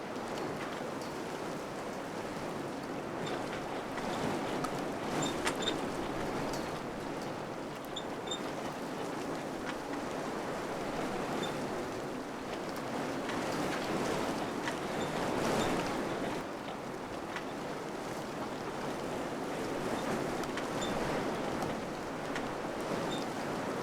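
Wind blowing steadily, swelling in gusts and easing off again, with a few faint clicks or light rattles here and there.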